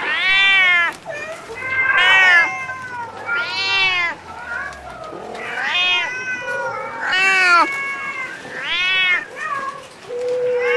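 Kittens meowing over and over, high arched meows about every one and a half seconds, some overlapping. Near the end comes one longer, lower meow that falls in pitch.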